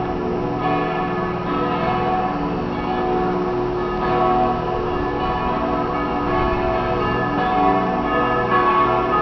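Several church bells ringing together from a steeple in a continuous peal. Their overlapping tones swell and linger into one another throughout.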